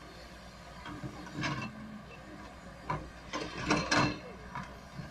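Irregular mechanical clanking and clicking over a low steady hum, the clanks coming in clusters and loudest a little after the middle.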